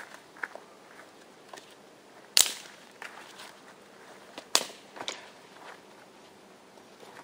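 Firewood being broken up: two sharp cracks about two seconds apart, with lighter knocks and snaps of wood around them.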